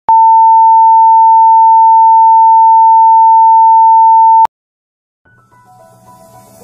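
Television test tone that goes with a colour-bars test pattern: one loud, steady, high-pitched beep held for about four and a half seconds and cut off sharply. After a short silence, soft music fades in near the end.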